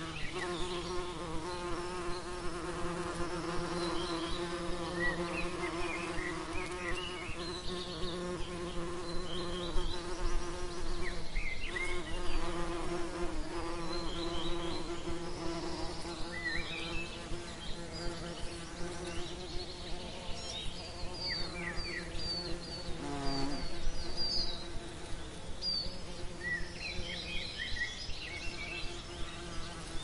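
Bee buzzing in a steady low drone, dipping briefly in pitch about two-thirds of the way through.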